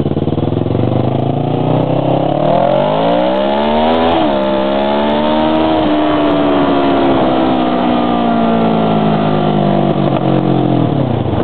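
Kawasaki 650R parallel-twin motorcycle engine accelerating hard, its pitch rising for about four seconds until a quick drop at an upshift. It then pulls a little higher and settles into a steady cruise with slowly falling revs, easing off near the end.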